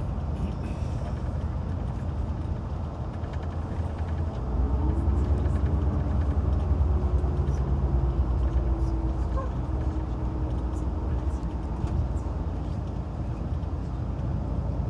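Tour coach engine and road rumble heard from inside the cabin. About four seconds in, the engine note rises and grows louder as the coach accelerates, then holds steady.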